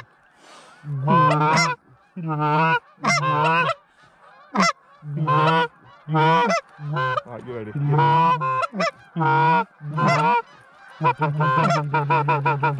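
Goose calling: a quick string of loud, close honks and clucks, about a dozen short calls with brief gaps between them, running together more densely near the end.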